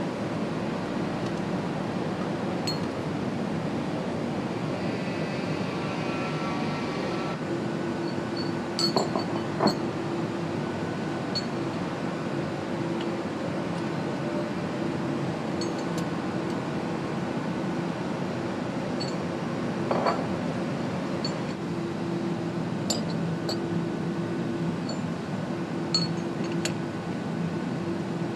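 Steady factory-hall hum with scattered light metallic clinks as connecting rods and measuring tools are handled on the work bench.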